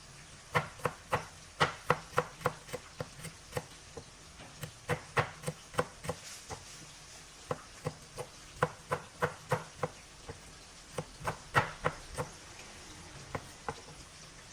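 Knife chopping on a cutting board: irregular runs of short, sharp knocks, two to three a second, with short pauses between runs.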